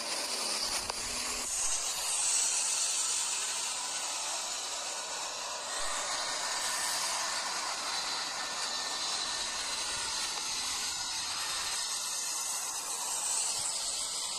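Airbus A330-900's Rolls-Royce Trent 7000 jet engines as the airliner rolls out along the runway after touchdown: a steady rushing hiss that swells about two seconds in and again near the end.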